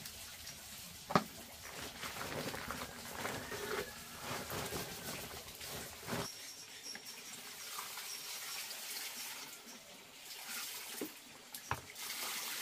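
Water trickling and splashing, with a sharp knock about a second in and scattered smaller knocks.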